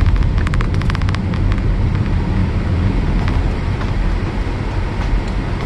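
Car driving along a highway: steady low road and engine rumble, with a quick run of light clicks or rattles about half a second in.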